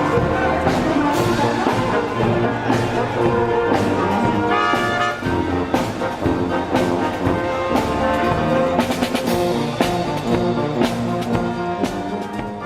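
Brass band music, with trumpets and trombones playing held notes over repeated drum hits.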